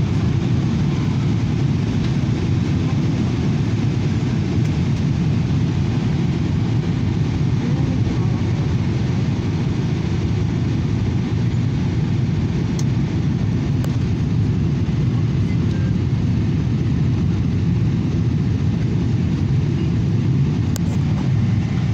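Steady low drone inside a jet airliner's cabin in flight: engine and airflow noise heard at a window seat.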